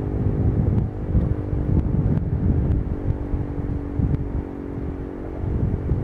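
Wind buffeting the microphone with a heavy gusting rumble. Underneath, a faint steady siren tone of several pitches dies away over the first few seconds, the last note gone about five seconds in: the tail of a Sentry 14v siren test.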